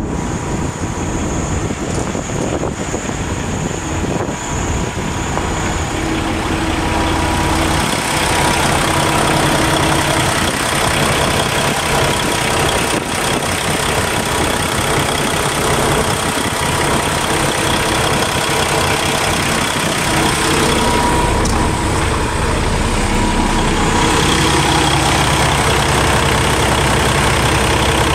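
Diesel engine of a 2015 Kenworth T680 semi truck idling steadily, with a steady whine over the idle. It grows louder from about eight seconds in.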